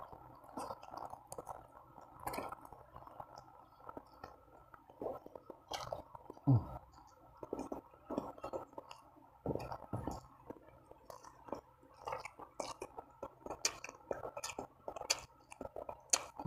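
A person chewing mouthfuls of Samyang spicy instant noodles, rice and fried chicken, eaten by hand close to the microphone: irregular wet smacks and clicks of the mouth. There are two louder low thumps, one about six seconds in and one near the end.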